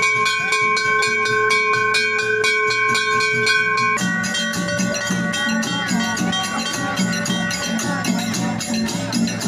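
Brass temple bell rung rapidly, its ringing held over a fast, even rhythm of strikes. After about four seconds it changes abruptly to hand drums played with ringing metal percussion.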